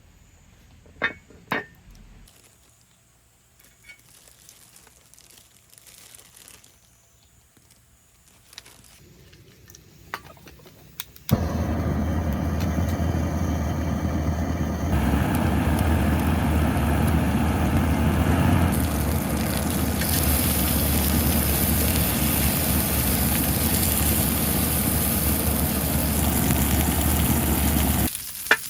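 A few light clicks and knocks, then, about eleven seconds in, a sudden loud sizzle of pork belly frying on a hot cast-iron cauldron lid. It grows louder and hissier twice as more meat goes on, then cuts off.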